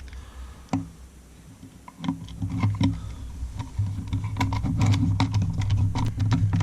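Small Torx T6 screws being driven back into an HTC Vive Lighthouse base station's housing: a run of irregular light clicks and ticks from the screwdriver and parts, starting about two seconds in, over a low steady hum.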